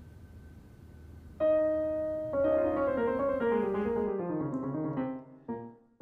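Grand piano: after faint room hum, a chord struck about a second and a half in and held, then a run of notes stepping downward that fades away, with a couple of short notes near the end.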